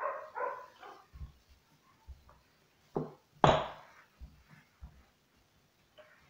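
A dog barking: two short barks at the start and a louder pair about three seconds in. Between them, soft dull knocks of a wooden rolling pin working bread dough on a wooden table.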